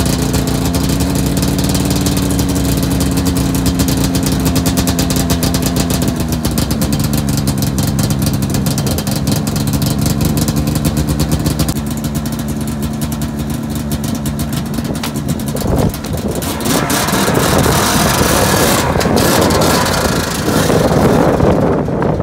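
Ski-Doo MXZ 800 snowmobile's two-stroke twin engine running with a steady note. About two-thirds of the way through it revs up as the sled pulls away, and the sound turns louder and rougher, with engine and track noise.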